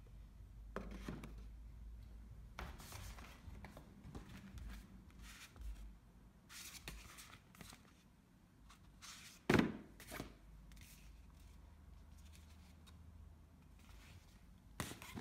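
Cardboard gift box and card packaging being handled by hand: intermittent rustling, sliding and scraping of card, with a sharp knock a little past the middle and another near the end.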